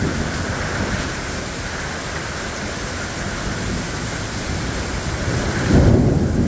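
Heavy thunderstorm rain pouring steadily, with a brief low rumble near the end.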